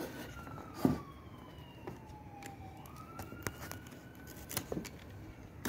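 A siren wailing in the background, its pitch sliding slowly down for about three seconds, then swooping back up and holding. Over it come a few sharp clicks and knocks from handling a knife and bungee cord, the loudest about a second in.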